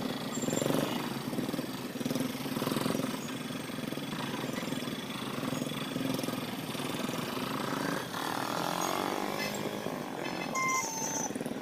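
Street traffic noise: motorbike and autorickshaw engines running and passing, with some voices in the background and a couple of short high beeps near the end.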